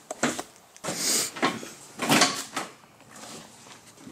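A few short rustling, scraping noises, one about a second in with a lot of hiss and another around two seconds in.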